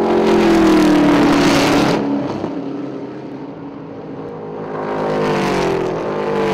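Two racing stock cars driving by at speed on a racetrack, one after the other. Each engine note swells and then drops in pitch as the car passes, the first in the first two seconds and the second near the end.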